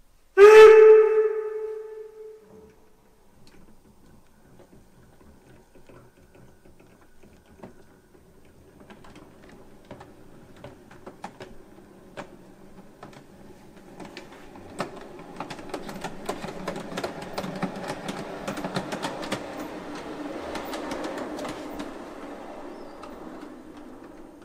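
Gauge 1 brass model of steam locomotive 18 201 running on its test track: wheels clicking over the rail joints and the drive clattering, getting louder for a while past the middle and then easing off. About half a second in, a loud ringing tone sounds once and dies away over about two seconds.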